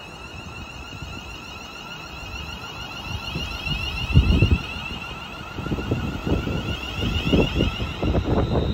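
Class 350 Desiro electric multiple unit pulling away from the platform, its traction equipment giving a steady high whine that rises slightly in pitch as it gathers speed. Wind buffets the microphone in gusts, loudest about four seconds in and again near the end.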